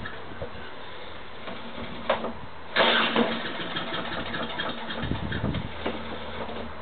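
Petrol lawn mower being pull-started: sharp pulls of the recoil cord about 2 and 3 seconds in, and a low rumble of the engine turning over around 5 seconds in, with no steady running.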